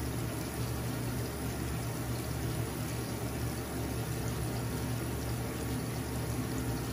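Bathroom sink tap running steadily into the basin, with a low steady hum underneath.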